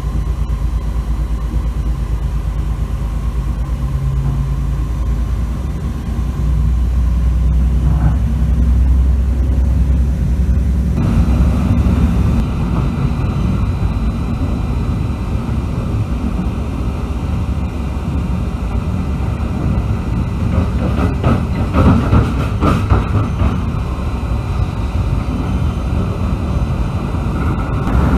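MÁV M41 diesel-hydraulic locomotive running under load as the train gathers speed: a steady low rumble that grows about six seconds in, then swells into a fuller running noise at about eleven seconds. A run of quick knocks around twenty to twenty-three seconds in is the wheels clattering over rail joints and points.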